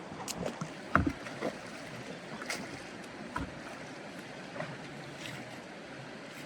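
Steady rush of water with scattered splashes and knocks from a small boat being worked on the water; the loudest knock comes about a second in.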